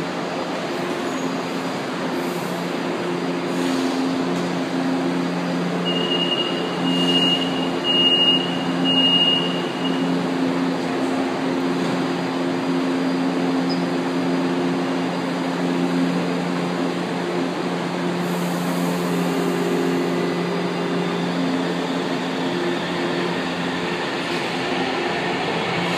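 São Paulo Metro train at the platform, its traction and onboard equipment giving a steady hum with several low tones. About six seconds in come four short high beeps of the door-closing warning, and the train's hum shifts in pitch later on as it moves off.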